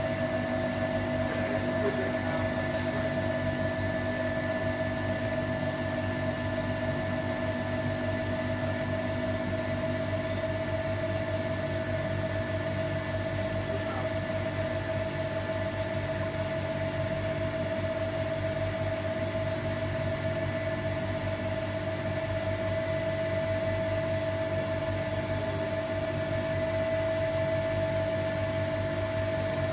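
Vacuum pump running steadily, a constant hum with a high whine, drawing vacuum to pull resin through a carbon-fibre layup in a VARTM mould.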